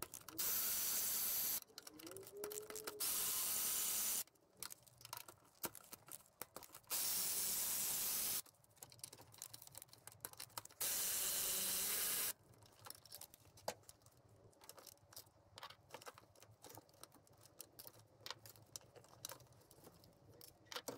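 Cordless electric ratchet running in four bursts of about a second and a half each as it spins out the four 12 mm throttle-body bolts, with light clicks and clatter of the tool and bolts between and after the bursts.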